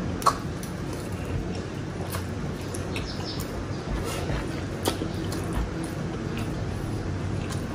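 Close-up eating sounds: chewing grilled chicken and rice with the mouth full, with small wet lip-smacking clicks scattered through, the sharpest just after the start and about five seconds in, over a steady low background hum.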